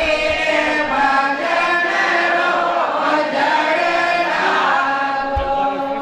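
Many voices chanting together in a devotional chorus, with long held notes.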